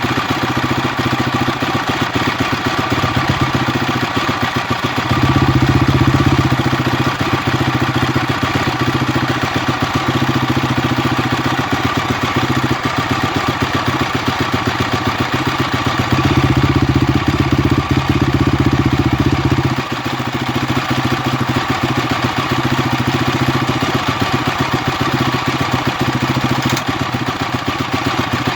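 Honda CRF250X single-cylinder four-stroke engine idling, with the unexplained strange noise that is the owner's concern. Twice it runs louder and fuller for about three seconds before settling back.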